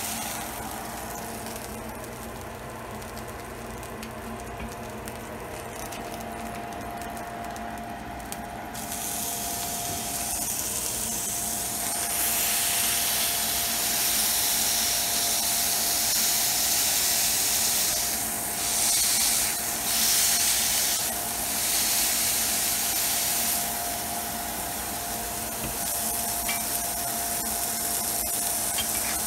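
Ground beef sizzling in a smoking-hot cast iron skillet as a meatball is smashed flat under a metal spatula: a softer pan sizzle at first, then a loud hissing sizzle from about ten seconds in that dips briefly a few times.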